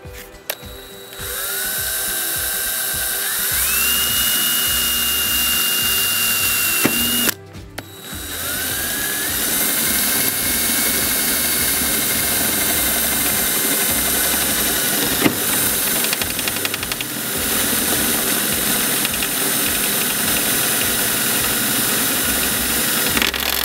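Power drill with a twist bit drilling pilot holes through layers of steel roof trim: the motor whine climbs in pitch as the trigger is squeezed, runs about six seconds and stops, then starts again and runs steadily for about fifteen seconds.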